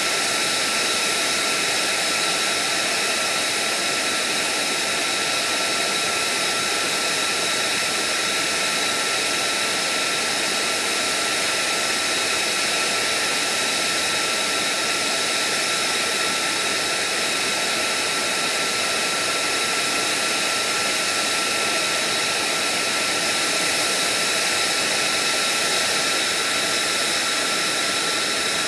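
F-35's Pratt & Whitney F135 turbofan idling on the ground: a steady rush of jet noise with a high, steady whine over it.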